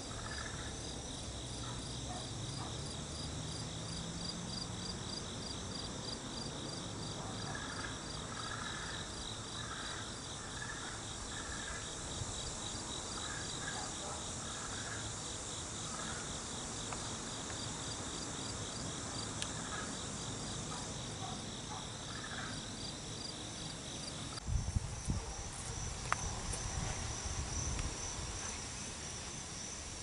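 A steady, high-pitched background chorus of singing insects, pulsing rapidly. About twenty-five seconds in, part of the chorus drops out and a few seconds of low rumbling thumps come over it.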